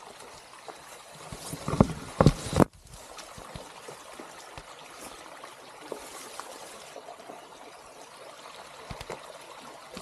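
A small stream trickling and running steadily. About two seconds in, a quick cluster of loud knocks is the loudest thing heard.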